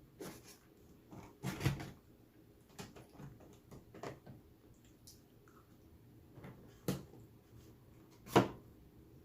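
Eating and food-handling sounds from a takeout meal: a few short, irregular clicks and knocks, the loudest near the end.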